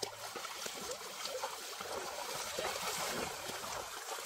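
Water splashing and churning as people wade and splash with their hands in a shallow stream.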